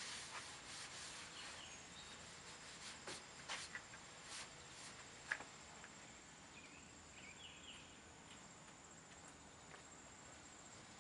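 Quiet outdoor ambience: crickets chirping in a steady high trill, with a scatter of faint clicks and footstep scuffs in the first half and a few faint short chirps around the middle.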